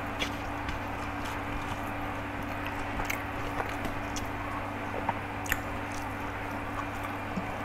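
A man eating rice by hand from a steel plate: chewing and fingers gathering rice on the metal, with a few short sharp clicks, over a steady low hum.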